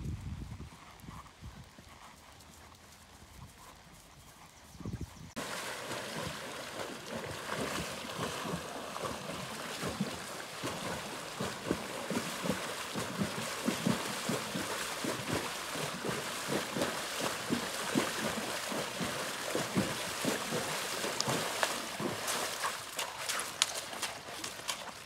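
Faint hoofbeats of a horse on grass; about five seconds in the sound jumps to a horse wading through a shallow creek, its hooves splashing in the water in a quick, uneven rhythm, and near the end stepping out onto a gravel bank.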